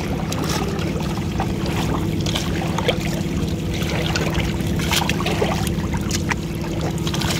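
Small fish trapped in a fine-mesh net pocket, flapping and splashing in shallow muddy water: a scatter of short wet flicks and splashes. Under them a steady low engine hum.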